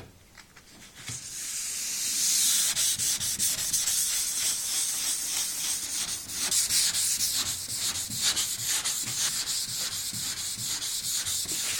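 Hand wet sanding of two-pack epoxy primer on a car body panel with 500-grit paper on a sanding pad: a steady rasping hiss of repeated back-and-forth strokes, starting about a second in.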